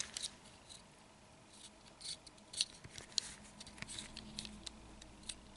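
Light, irregular clicks and taps of a small 1/64 scale diecast model car being handled and turned over.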